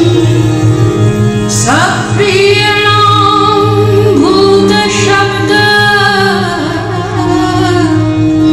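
Padabali kirtan devotional music: a woman sings long, gliding phrases over a steady low drone and instrumental accompaniment.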